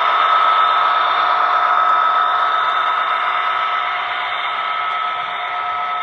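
Model freight train rolling past: a steady hiss with a thin whine running through it, slowly fading as the locomotives move away.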